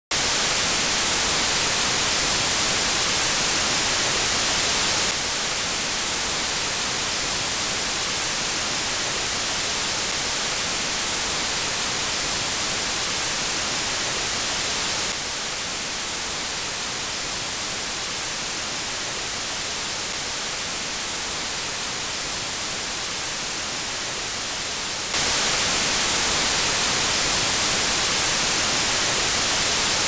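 Speaker-test noise: a steady hiss, routed to one surround channel at a time and switching channel about every ten seconds. Its level steps down at about five and fifteen seconds in and jumps back up at about twenty-five.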